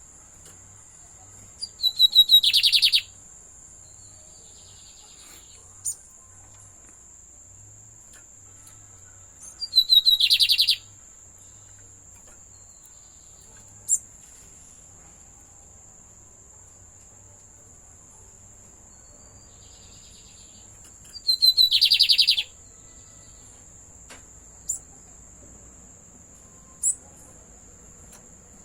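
A caged lined seedeater (bigodinho) sings three short, loud, high-pitched song phrases about eight to twelve seconds apart, each about a second long, with a few single short chips in between. A steady thin high-pitched tone runs underneath throughout.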